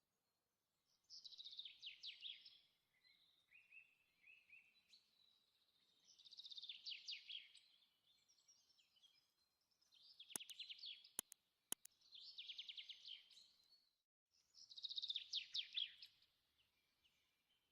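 Faint bird song: a small songbird's rapid trilled phrases, repeating every two to three seconds. A few sharp clicks come about two-thirds of the way through.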